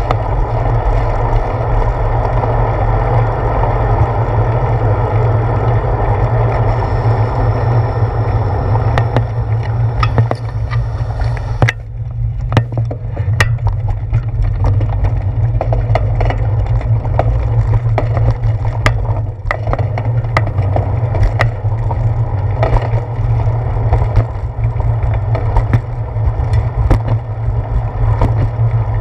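Wind rumble and rolling road noise on a handlebar-mounted GoPro Hero 4 riding on a moving bicycle. From about twelve seconds in there are frequent short knocks and rattles as the bike rolls over bumps and pavement joints.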